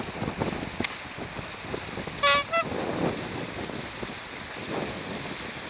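A short double toot, a clear tone with overtones, a little over two seconds in; the second note is shorter than the first. It sits over a steady rush of wind and flowing water, with a single sharp click about a second in.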